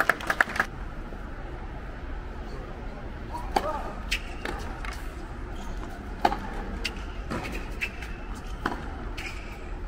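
Tennis balls being struck by rackets and bouncing on a hard court during serve practice: a quick flurry of sharp pops at the start, then single pops every second or so, over faint spectator chatter.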